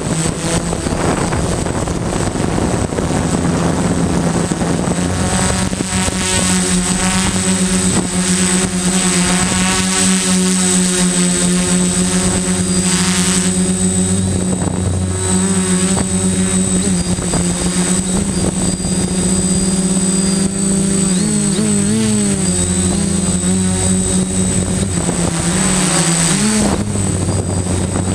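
Electric motors and propellers of a small FPV drone, recorded on its own onboard camera: a loud, steady buzzing whine whose pitch wavers up and down twice in the last third.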